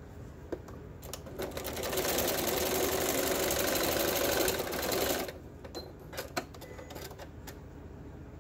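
Electric sewing machine stitching a short seam for about four seconds, building up speed at the start and stopping abruptly. It is followed by a few light clicks and rustles as the fabric is handled.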